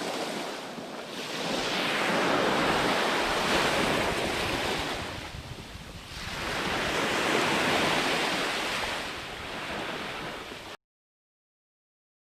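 Ocean surf: waves washing in, in two long swells of several seconds each. The sound cuts off abruptly into silence near the end.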